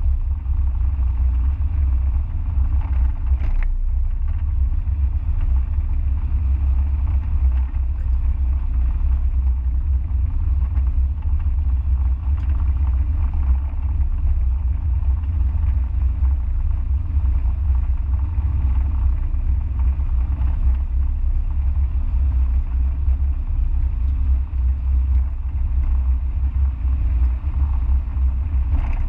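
Steady low rumble of a Mazda MX-5 on the move, its four-cylinder engine and road noise heard onboard at an even pace.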